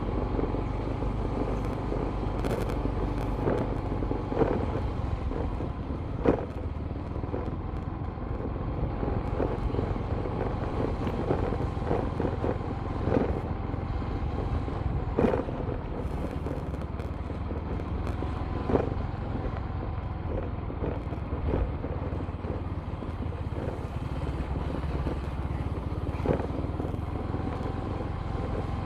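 Motorcycle running steadily at low speed, with a low rumble and occasional sharp knocks.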